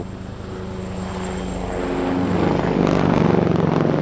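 Eurocopter Tigre attack helicopter flying in, its rotor and engines growing louder to a peak about three seconds in.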